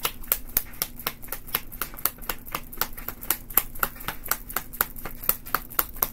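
Deck of tarot cards being shuffled hand to hand: a steady run of short, crisp card slaps, about four or five a second.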